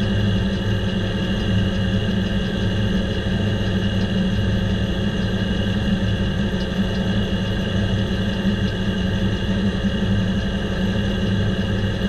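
Diesel-powered circle sawmill running steadily between cuts, the large circular blade spinning free: an even mechanical hum with several steady tones above it and no change in speed.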